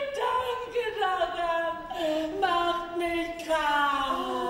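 A woman's high voice singing or vocalising in long, drawn-out sliding notes that step downward in pitch, unaccompanied.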